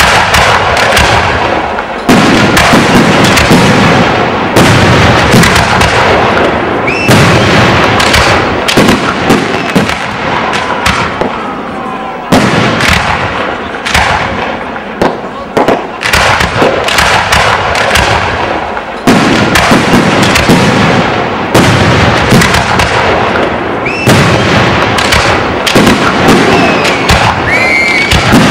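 Fireworks display: a dense, loud barrage of aerial shell bursts, booms and crackle, coming in surges that start abruptly every few seconds.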